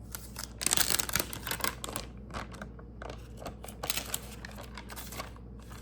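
iPad box and packaging being handled by hand: a run of light clicks and rustles, busiest about a second in and again through the second half.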